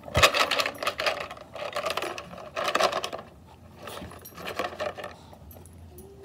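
Dry dog treats rattling and clattering inside a plastic milk jug as it is pushed and tipped about on a rug, busiest in the first three seconds.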